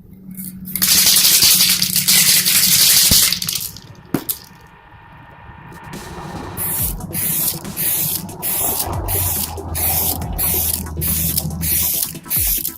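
Aerosol spray-paint can spraying in one long hiss of about two and a half seconds. From about six seconds in, a pulsing rhythm with a steady bass line.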